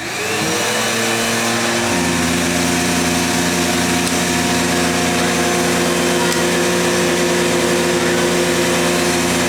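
Vacuum cleaner switched on, its motor spinning up in the first half second, then a deeper steady tone joining about two seconds in, after which it runs at a steady, loud hum.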